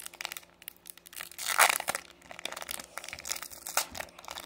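Foil Pokémon booster pack wrapper crinkling and tearing as it is ripped open by hand, with the loudest tear about a second and a half in.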